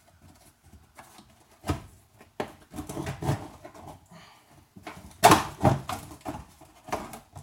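Plastic fender liner being pulled back and flexed away from the fender: irregular scraping and knocks, the loudest about five seconds in.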